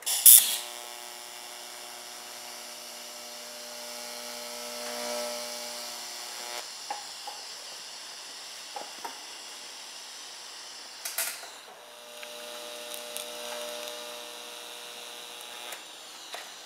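TIG welding arc on a stainless steel tube: a brief sharp crackle as the arc strikes, then a steady buzzing hum for about six seconds. The arc stops, strikes again with another crackle about eleven seconds in, and the buzz runs on.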